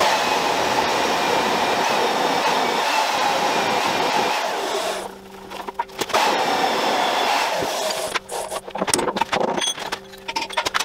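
Magnetic drill's electric motor running with a steady whine, easing off about five seconds in and starting again for a couple of seconds. Near the end, a few sharp knocks of a hammer on the steel work over a steady low hum.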